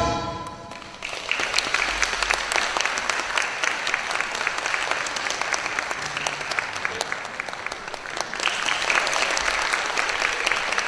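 The ensemble's last chord dies away into the hall's reverberation. About a second in, an audience starts applauding, a dense steady clapping that grows louder again near the end.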